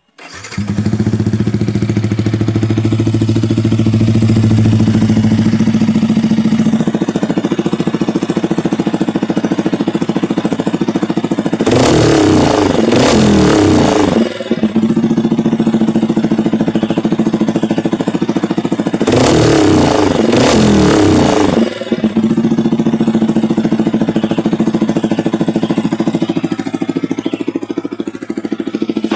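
Yamaha R15 v3's single-cylinder engine breathing through an aftermarket Daytona racing exhaust, idling steadily and blipped twice into loud revs of two to three seconds each, about twelve and nineteen seconds in, dropping back to idle after each.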